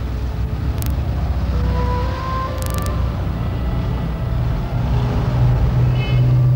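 Street traffic: car engines running as cars drive past, a steady low rumble, with two short hisses about a second in and near three seconds.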